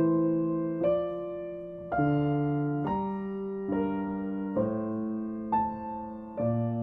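Grand piano played slowly: a new chord struck about once a second and left to ring out, fading before the next one.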